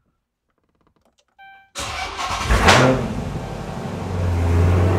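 2013 Chrysler 300 SRT8's 392 Hemi V8 with SLP Loudmouth exhaust starting, heard from inside the cabin: a short beep, then just under two seconds in the engine cranks and fires, flares up in revs and settles into a steady idle.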